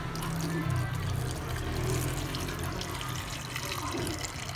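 Water poured from a bowl onto cut cassava pieces in a stainless steel pot, a steady splashing pour, over background music.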